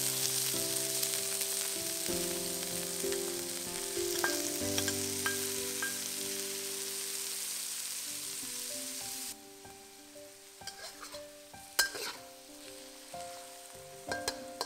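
Shrimps and diced tomato sizzling in hot oil in a wok, stirred with a metal wok spatula. The sizzle drops off sharply about nine seconds in to a faint sizzle, with a few sharp clinks of the spatula against the wok near the end.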